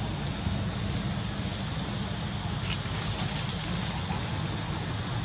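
Steady outdoor rumble and hiss, heaviest in the low end, with a thin constant high-pitched whine over it and a few faint ticks about three seconds in.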